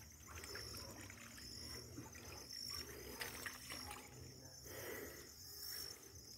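Faint, irregular sloshing and trickling of shallow creek water as a fishing sieve is worked through it by hand. Insects chirr steadily in the background.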